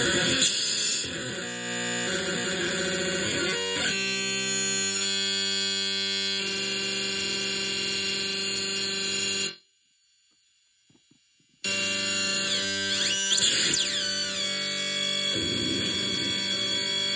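Void Generator experimental sound machine droning with dense buzzing stacked tones that shift in steps as its knobs are turned. About halfway through it cuts out for about two seconds, then comes back with pitches sweeping up and down.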